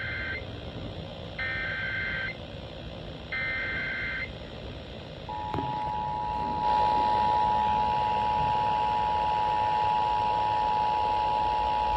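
Emergency Alert System broadcast: three bursts of the SAME digital header, shrill warbling data tones about a second apart, the first already under way. From about five seconds in comes the steady two-note EAS attention signal.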